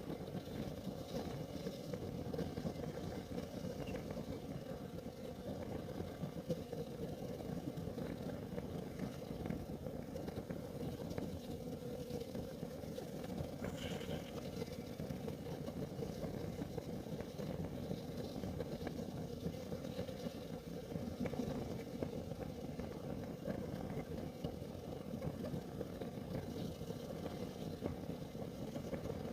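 Kerosene heater burning: a steady low rumble of the flame with a few faint crackles.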